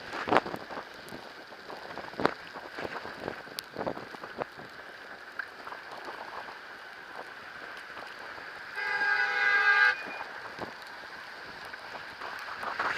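A horn sounds once, a steady pitched honk of about a second, about two-thirds of the way in. Beneath it runs the steady noise of an e-bike riding through snow, with scattered clicks and knocks.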